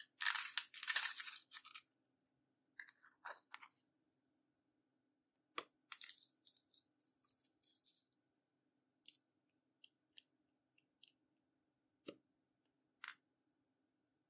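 Close-up handling of makeup products and slime: bursts of crunchy, crackly scraping with sharp clicks and taps in between. The densest crackling comes in the first two seconds, and single clicks and short scrapes follow.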